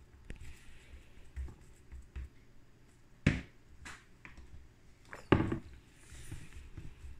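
Handling of a plastic hamburger press: soft taps and scrapes of a spoon working ground beef in the press cup, then two sharp plastic clacks, about three and five seconds in, as the presser is brought over and pushed down into the cup.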